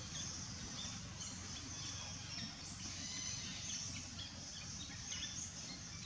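Outdoor ambience of many small birds chirping in short, scattered calls, over a steady low rumble.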